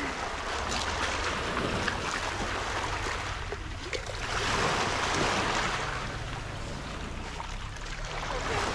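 Small sea waves washing over a pebble shore, the wash swelling about halfway through and easing off again, with a low wind rumble on the microphone.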